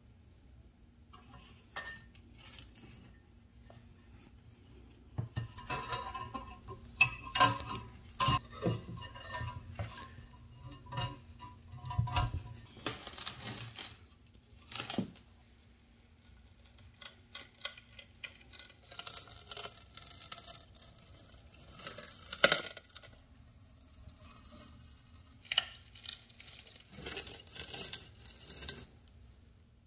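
Rusty cast iron tobacco cutter being handled and its lever-arm blade worked: a run of metallic clanks, clicks and scrapes, with a quieter stretch in the middle, over a faint steady hum.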